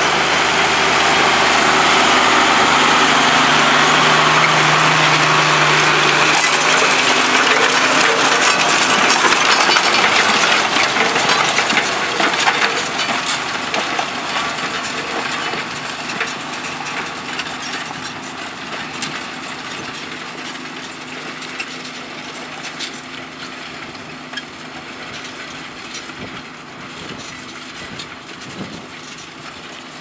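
New Holland TM120 and John Deere 6620 tractor diesel engines pulling reversible ploughs under load, with crackling of soil and stubble being turned over. The sound fades steadily over the second half as the tractors move away.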